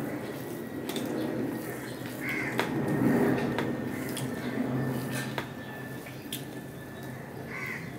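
Fingers mixing and squashing rice with red amaranth fry on a steel plate: soft wet squishing, with a few sharp ticks of fingers against the plate.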